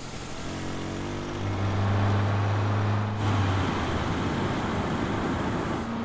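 Street traffic: a car engine's low hum swells about a second in and fades again after about three seconds, over a steady wash of passing-traffic road noise.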